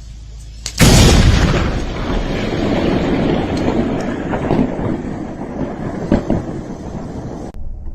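Thunder from a close lightning strike: a sudden loud crack about a second in, then a long rumble that slowly fades.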